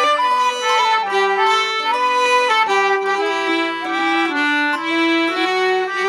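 Instrumental background music: a melody moving from note to note over held lower notes.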